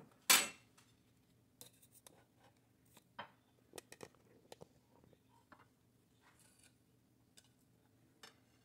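Kitchen handling noises: one sharp knock about a third of a second in, then scattered light clicks and scrapes, as a china plate and metal serving spoon are handled and the plate is set on the stone counter.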